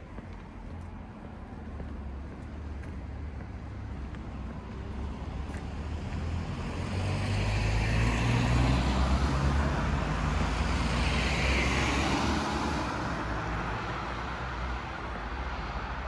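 A car passing on the street: engine and tyre noise build slowly, are loudest around the middle, then fade as it drives away.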